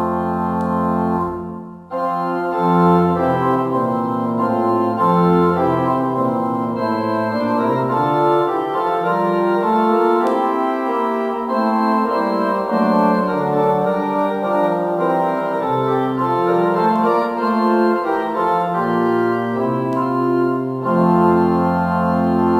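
Organ playing slow, sustained chords that change every second or so, with a brief break in the sound about two seconds in.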